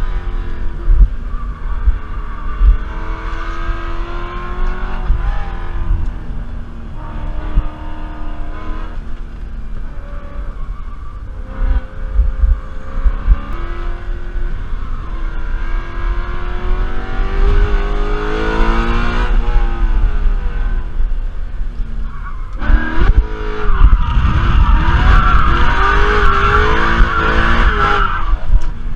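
BMW E92 M3's 4.0-litre V8 at full throttle on a racetrack, revving up and dropping back repeatedly through gear changes and corners. Tyres squeal briefly near the end.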